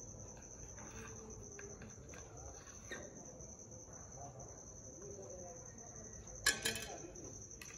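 A steady, high-pitched, pulsing trill runs throughout, with faint background murmur. A brief clatter comes about six and a half seconds in.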